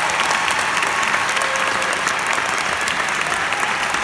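Audience applauding: steady clapping from many hands.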